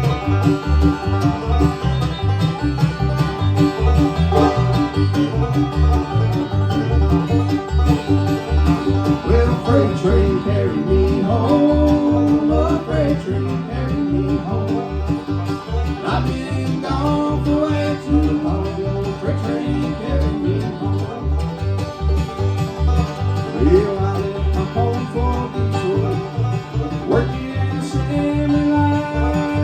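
Bluegrass instrumental: banjo and guitar picking over a steady bass beat.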